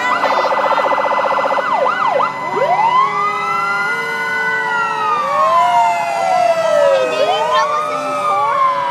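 Several fire truck sirens sounding at once as the trucks pass, overlapping: a fast warbling yelp for the first second and a half, then slow wails rising and falling, with another rise a little before the end.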